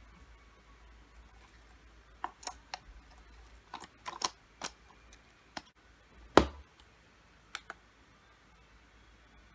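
Hands handling a lightstick and its packaging: scattered small clicks and taps, the loudest a single knock about six seconds in.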